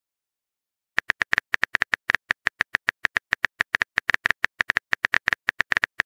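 Typing sound effect of a chat app: a rapid, even run of keyboard clicks, about nine a second, starting about a second in after silence.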